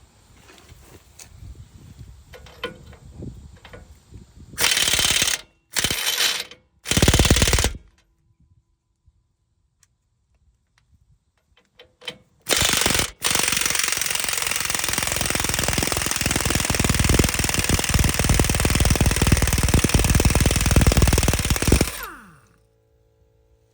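SATA STO1119 half-inch drive air impact wrench hammering: three short bursts under a second each, then after a pause a brief burst and a long run of about nine seconds that winds down at the end.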